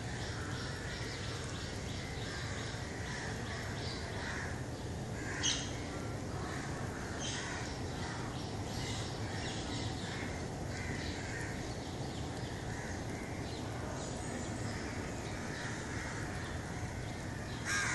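Birds calling, with crow-like caws repeating, over a steady low hum. One sharp knock about five and a half seconds in.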